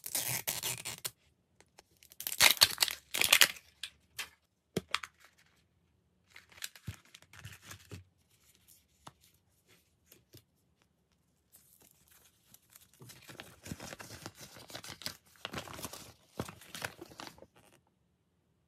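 Printed wrapper being torn off a MiniVerse toy capsule ball in several loud rips, followed by a few sharp clicks and soft crinkling. Near the end comes a longer stretch of paper rustling as a folded leaflet is handled.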